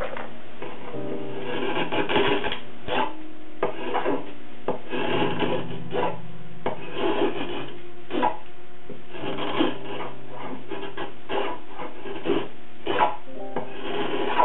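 Hand-pushed carving gouge paring curled shavings from the edge of a wooden guitar plate: a run of short scraping cuts, roughly one or two a second.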